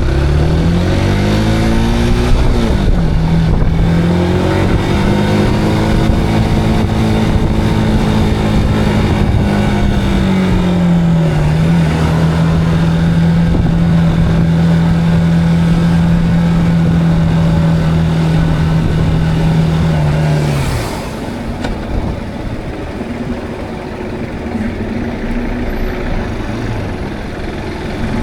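Zontes cruiser motorcycle engine pulling away: the revs climb, break for a gear change, climb again, then hold steady at cruising speed. About twenty seconds in the engine note falls away and the sound drops to a quieter, lower running.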